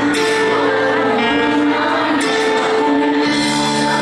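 Live concert music played loud: held chords that change about once a second, with singing.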